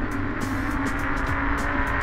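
Background music playing over a low wind rumble on the microphone from riding.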